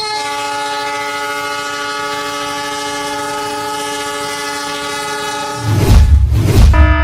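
Train horn blowing one long steady chord for about five and a half seconds, then two loud low booms near the end.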